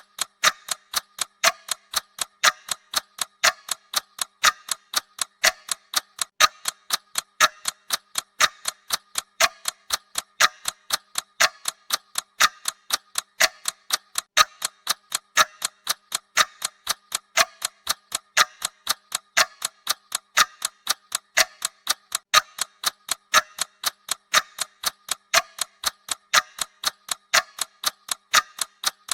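Clock ticking sound of a countdown timer: steady, evenly spaced ticks, each with a short bright ring.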